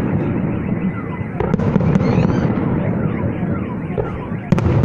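Fireworks salute: a continuous rumble of bursting shells, with sharp bangs about a second and a half in and near the end, and faint falling whistle-like glides in between.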